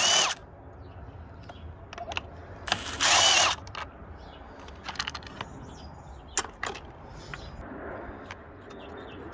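Milwaukee M12 cordless driver running in two short bursts, one right at the start and one about three seconds in, as it backs screws out of the pressure washer's plastic housing. After that come a few scattered clicks and rattles of screws and plastic parts being handled.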